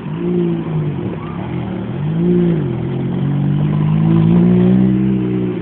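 Ferrari F430's 4.3-litre V8 being revved: two short blips that rise and fall, then a longer rev held higher before it drops back near the end.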